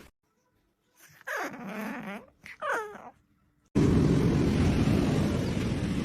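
A pet animal giving two short vocal calls, the first sliding down in pitch, followed by a loud, steady rushing noise that starts suddenly about two-thirds of the way in.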